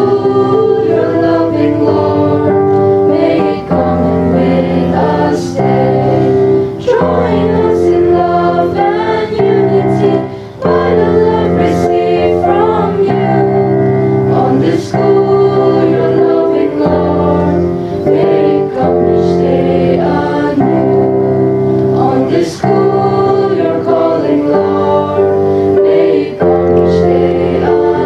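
A school choir of boys and girls singing a hymn together, in long held notes that move from chord to chord.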